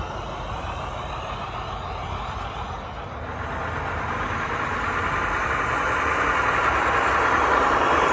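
Radio-controlled WPL 8x6 semi truck with a Mercedes-Benz Arocs cab driving toward the microphone over concrete. Its running sound grows steadily louder from about three seconds in as it closes in.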